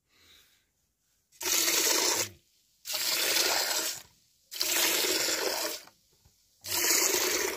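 Buffalo being milked by hand: jets of milk streaming into a metal bucket in four bursts, each about a second long, roughly one and a half seconds apart.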